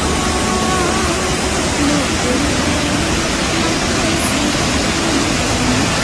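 Steady, loud rush of a fast-flowing river and a large waterfall, with faint voices underneath.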